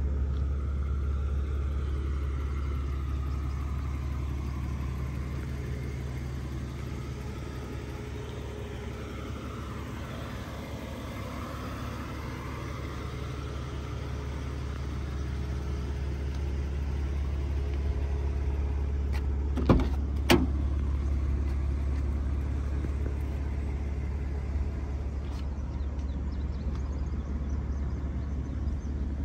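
BMW Z4 2.5i's 2.5-litre straight-six idling steadily with a low, even hum. Two sharp clicks sound close together about two-thirds of the way through.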